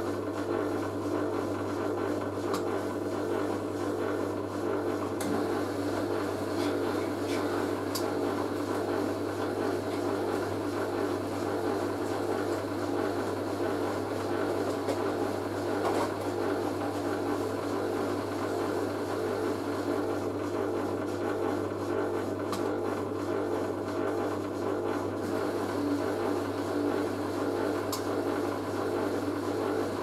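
Hoover A3060 Electronic 1100 front-loading washing machine slowly tumbling a load of laundry, its motor running with a steady hum as the drum turns. A few faint clicks are heard along the way.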